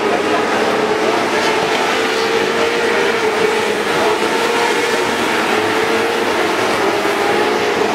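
A pack of winged sprint cars racing on a dirt oval, their engines running loud and steady, the pitch wavering slightly as they circle the track.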